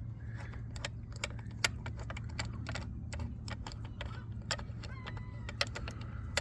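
Irregular light metallic clicks and clinks of a spark plug and plug socket being handled and threaded by hand into an outboard's cylinder head, over a steady low hum.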